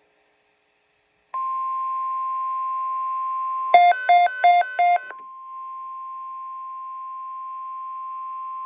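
NOAA Weather Radio's steady 1050 Hz warning alarm tone, sounding the alert for a severe thunderstorm watch. It starts about a second in, is broken a little before the middle by four quick, loud beeps that alternate in pitch, and then carries on a little quieter.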